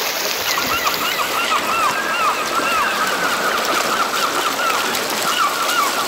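River rapids rushing and splashing over rocks in a steady roar. Over the water, a bird gives a quick series of short, arched chirps from about half a second in, pauses after three seconds or so, and starts again near the end.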